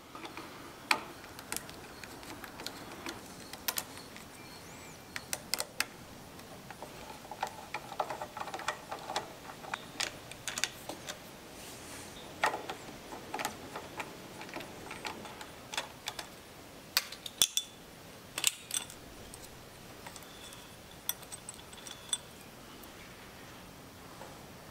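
Scattered light metallic clicks and clinks of a screwdriver on terminal screws and of small metal parts being handled, as the motor leads are disconnected from the forward/reverse switch's terminal block on a Bridgeport mill.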